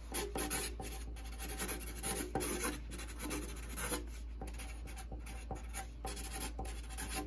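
A Sharpie marker writing on drawing paper as a signature and date are put down, in many short, irregular scratchy strokes.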